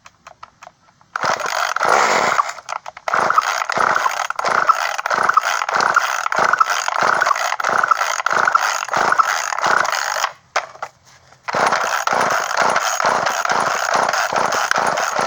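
Poulan Micro Pro Super XXV Deluxe chainsaw being pull-started: the recoil starter is yanked over and over, about twice a second, cranking the engine without it catching, in two long runs with a short pause between. The owner traces the failure to start to the carburetor not drawing fuel, with the fuel line empty.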